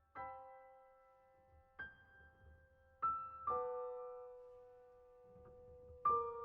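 Background music: soft piano notes played slowly, a few at a time, each left to ring and fade.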